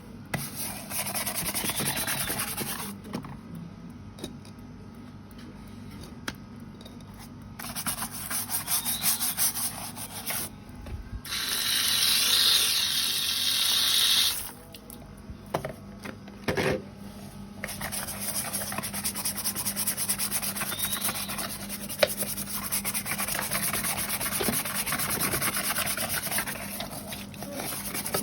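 Scrubbing and rubbing on the shell of a large Asian forest tortoise (Manouria emys) as it is washed clean, a continuous scratchy rubbing that goes on and off. About eleven seconds in, a louder hiss lasts about three seconds.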